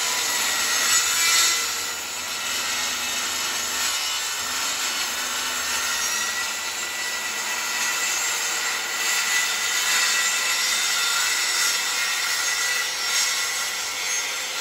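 Guild 1400 W 185 mm circular saw with a ripping blade, running steadily as it cuts diagonally through hardwood plywood.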